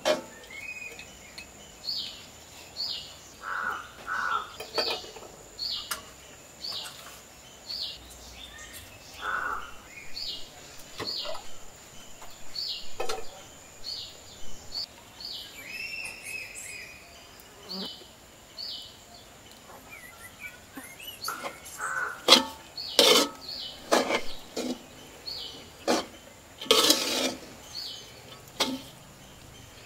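Wooden spatula scraping and knocking against an iron wok as fried rice is stirred, in sharp strokes that come thick and loud in the second half. Birds chirp repeatedly throughout.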